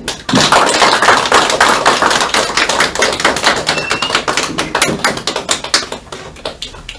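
A small group of people clapping their hands. The applause breaks out just after the start, is loudest over the first few seconds and thins out toward the end.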